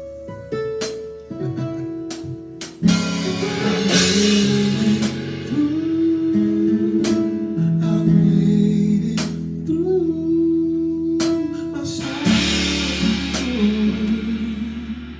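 A song played on guitar with singing, over sharp beats that land about every two seconds.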